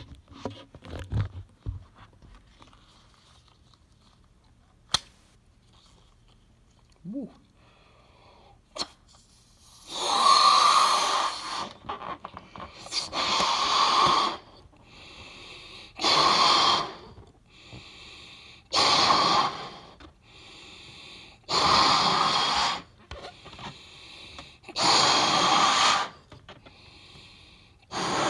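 A rubber balloon being blown up by mouth: about seven forceful breaths into it, roughly every three seconds, each followed by a quicker, softer inhale. They start about a third of the way in, after faint handling clicks and a short squeak.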